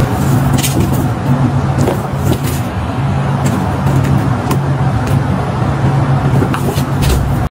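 A loud, steady low hum throughout, with a few short light clicks or taps scattered through it.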